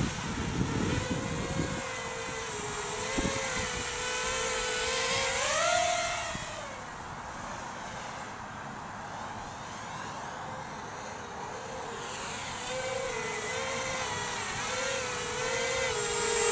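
Eachine Q200 quadcopter's DYS 1306 3100kv brushless motors and 4-inch propellers whining in flight on a 3S battery. The pitch wavers with throttle and rises about six seconds in. The whine fades as the quad flies off, then grows louder near the end as it comes back close.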